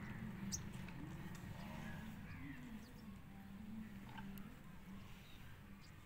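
Faint outdoor farmyard ambience: a low hum that fades after about three seconds, with a few short bird chirps and light ticks.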